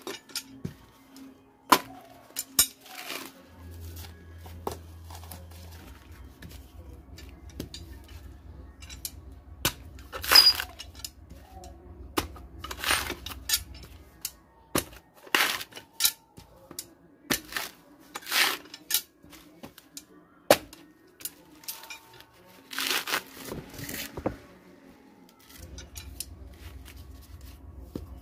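A sprouted coconut's fibrous husk being pried and torn apart by hand: irregular sharp cracks and snaps, with several longer ripping sounds as strips of husk fibre tear away.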